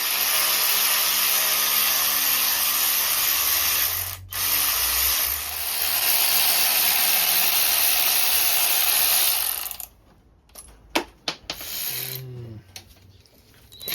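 A power tool runs steadily for about ten seconds, cutting out briefly about four seconds in, then stops, leaving a few clicks and knocks.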